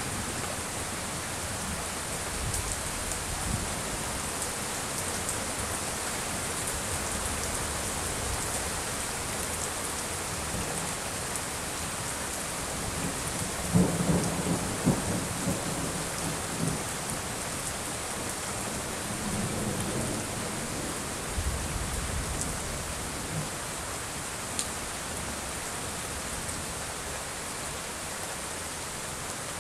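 Thunderstorm: rain hissing steadily, with a rolling rumble of thunder about halfway through that has several sharp peaks, and a weaker rumble a few seconds later.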